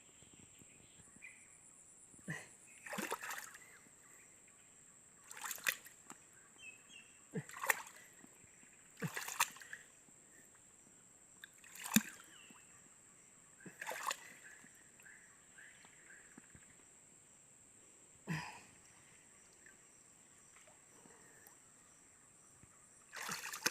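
Water splashing and sloshing in short bouts every second or two, over a steady high-pitched whine.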